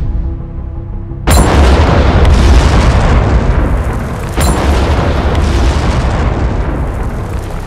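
Soundtrack effect of stone breaking apart: a sudden heavy boom about a second in, becoming a long crashing noise heaviest in the bass, and a second boom about three seconds later. Dark music plays quietly under it before the first boom.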